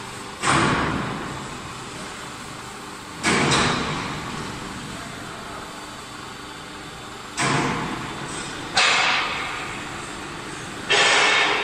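Workshop machine noise around a hydraulic oil press at work: five sudden loud bursts of hiss or clatter, each dying away over a second or two, over a steady background noise.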